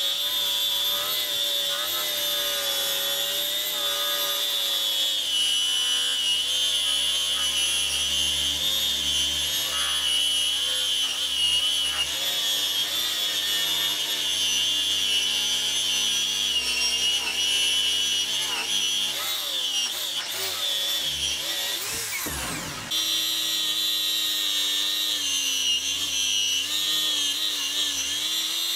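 Electric angle grinder with a felt buffing wheel running at speed, polishing a steel axe head: a steady high-pitched motor whine. About three-quarters of the way through, the pitch wavers and the sound dips briefly before running steady again.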